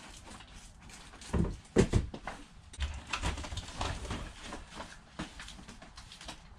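Boxed items and packaging being handled and set down: two dull thumps about a second and a half in, then scattered rustling and light knocks.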